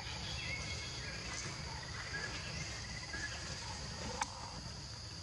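Steady high-pitched insect drone, with scattered short chirps and a single sharp click about four seconds in.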